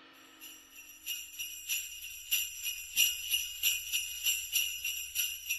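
Sleigh bells jingling in a steady rhythm, about three shakes a second. They start faintly about half a second in and grow louder.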